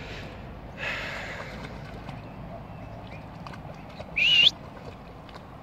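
Outdoor background with a short noisy swish about a second in. About four seconds in comes a brief, loud whistle-like call that rises and wavers in pitch.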